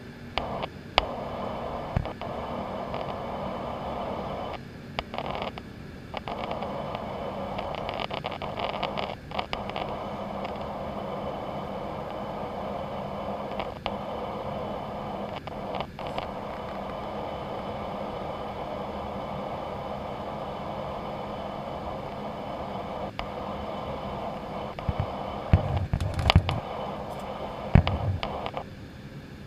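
Jet airliner cabin noise in flight, a steady rushing hiss that drops out briefly a few times. Scrapes and clicks of the camera being handled against the window run through it, with a few heavy knocks near the end.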